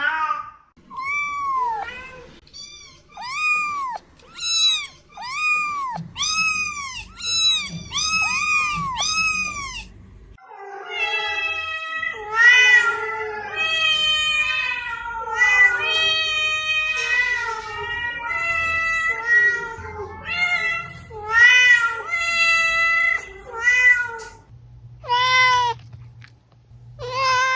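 Domestic cat meowing over and over. First comes a run of short meows that rise and fall, about one a second. About ten seconds in they give way to longer, drawn-out meows that waver in pitch, then short meows again near the end.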